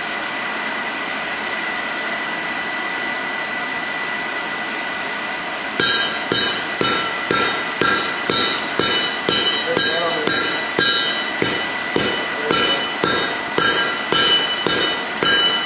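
A steady rush of air from the coal forge's blower, then about six seconds in a hammer starts striking hot steel on an anvil, about two blows a second, each blow ringing.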